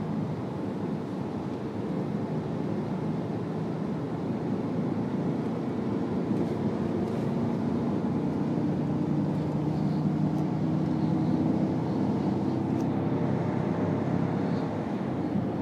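Cabin sound of a 2012 Jeep Grand Cherokee SRT8 on track: its 6.4-litre HEMI V8 pulling under throttle, mixed with wind and tyre noise. The engine note rises slowly as the car gains speed down a straight.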